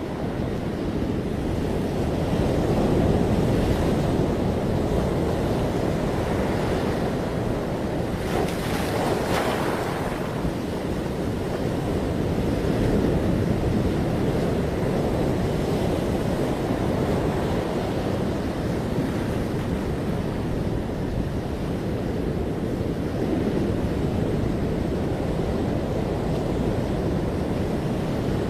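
Ocean surf washing continuously onto a beach, a low rumbling wash with a brighter, hissing break of a wave about nine seconds in.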